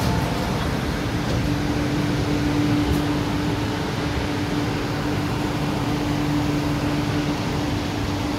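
MTR Kwun Tong Line Q-Train, a Hyundai Rotem-built metro train, heard from inside the car as it pulls away from a station platform: a steady hum and rumble, with a steady droning tone coming in about a second and a half in.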